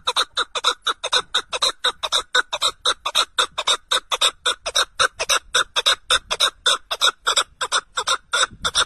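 Red-legged partridge calling: a fast, even run of short notes, about four or five a second, with no break.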